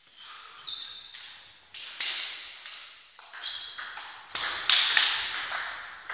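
Table tennis rally: the ball struck back and forth with bats and bouncing on the table, a string of sharp pings a third to half a second apart, louder in the second half.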